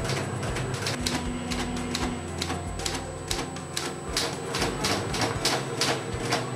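Typewriter keys striking the platen in an irregular run of sharp clacks, about two to three a second, as a picture is typed out character by character.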